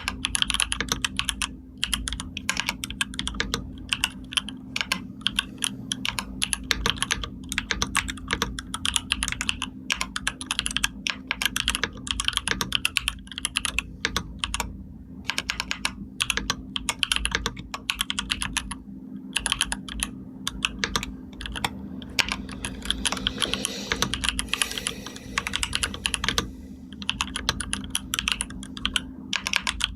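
Computer keyboard typing: quick runs of key clicks broken by short pauses, over a steady low hum.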